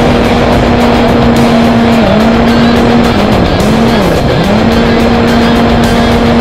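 Model aeroplane's electric motor and propeller whining at a steady pitch in flight. The pitch dips briefly about two seconds in and twice more near the middle as the throttle is eased, over a loud rushing noise.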